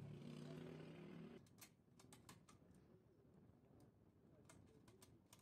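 Faint small clicks and taps of a wire being handled and pushed into a screw terminal on a contactor, a few scattered through the second half. A faint low hum stops about a second and a half in.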